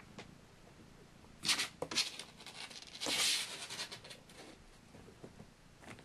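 Rustling and scratching of a kitten's claws on towels and cardboard as it scrambles about in a box. There are a few short scrapes about one and a half to two seconds in, then a longer rustle about three seconds in.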